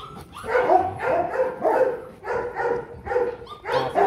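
Dog barking repeatedly, short barks in quick succession, about two a second.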